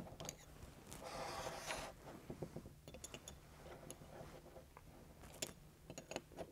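A small open-end wrench clicking and scraping on a pressure gauge's metal fitting as the gauge is tightened into an airgun's regulator block. There is a longer scraping stretch about a second in, then scattered light clicks.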